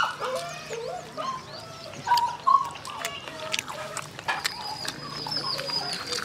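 Animal calls: many short chirps and whines that rise and fall in pitch, with scattered clicks and a thin steady high whistle from about four seconds in.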